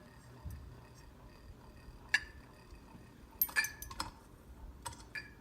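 Old ceiling fan running on medium with a faint hum, while a loose part clinks irregularly, a handful of sharp metallic clinks mostly in the second half; the owner says it is really loose and needs tightening.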